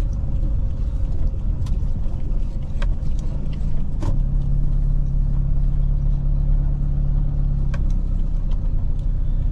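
Car on the move: a steady low rumble, with a few sharp knocks spread through it. A steadier engine hum holds from about four seconds in until nearly eight.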